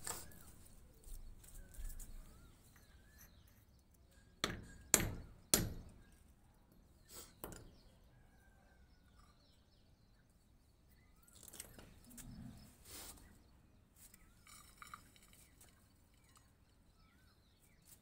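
Quiet handling sounds of repotting: three sharp knocks about four to six seconds in, then soft rustling of gravelly soil being scooped into a terracotta pot. Birds chirp faintly in the background.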